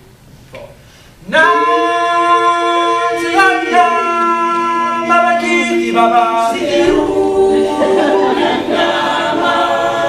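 All-male a cappella group singing in close harmony. After about a second of quiet the voices come in together on loud sustained chords, then break into busier, moving parts partway through.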